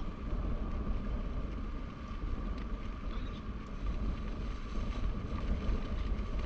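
Wind buffeting the microphone: a steady low rumble and hiss, with a faint steady high tone underneath.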